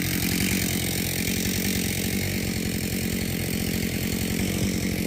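Chainsaw engine running steadily at an even speed, a rapid, unbroken pulsing with no rise or fall.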